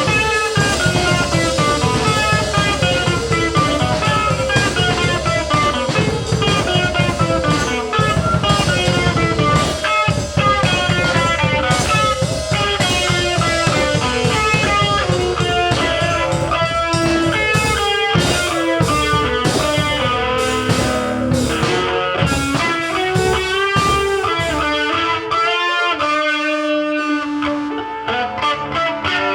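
Rock music led by electric guitar over a drum kit, with melodic guitar lines throughout; about 25 seconds in the drums and low end drop away, leaving held guitar notes.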